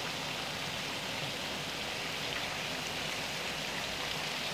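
Diced raw chicken breast sizzling in hot oil in a pan, a steady, even crackle.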